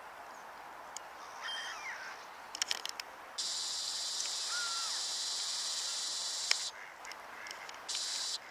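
A few short squeaky calls from waterfowl on the pond, with scattered clicks. Over them a steady high hiss switches on sharply about three seconds in, cuts off near seven seconds and comes back briefly near the end.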